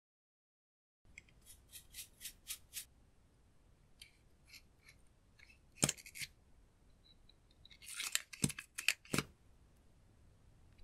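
Small plastic makeup items and tools clicking and tapping against glass trays: after a silent first second comes a quick run of about six light clicks, then scattered softer ticks. A loud click comes as a makeup wand tube is pulled open, and a cluster of clicks and knocks follows near the end.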